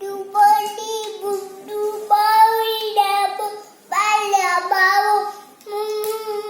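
A toddler singing wordlessly in a high voice, long held notes that bend up and down, with short breaks about four seconds in and again near six seconds.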